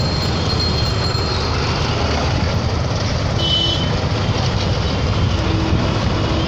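Busy street traffic: a steady rumble of motor vehicle engines and tyre noise from auto-rickshaws, cars and a passing pickup truck, with a brief high-pitched tone about three and a half seconds in.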